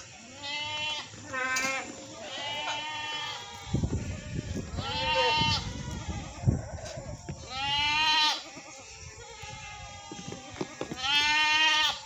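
Goats bleating, about six separate calls through the herd, the loudest in the middle and near the end.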